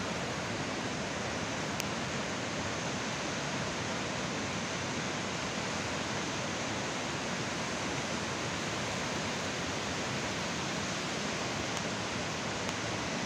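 Swat River in flash flood: the steady, dense rushing noise of fast-flowing floodwater, even and unbroken throughout.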